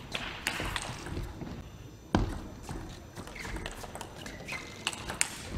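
Table tennis rally: the plastic ball knocking off bats and table in quick irregular strikes, with brief high squeaks of shoes on the court floor. The loudest is a single thump about two seconds in.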